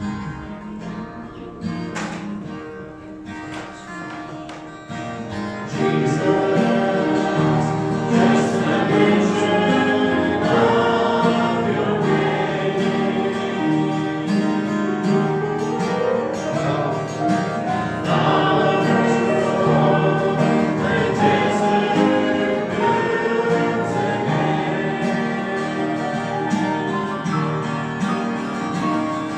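A congregation singing a gospel hymn with guitar accompaniment. The first few seconds are a quieter instrumental lead-in, and the voices come in fully about five seconds in.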